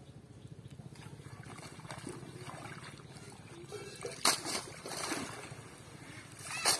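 Water splashing and streaming as a cast net is hauled out of a pond with fish thrashing in it. There are two loud splashes, about four seconds in and near the end.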